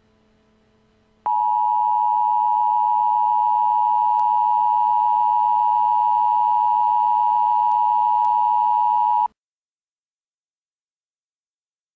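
Emergency Alert System attention tone sounding an alert for a tornado warning: one loud, steady electronic tone that starts about a second in, holds for about eight seconds, then cuts off suddenly.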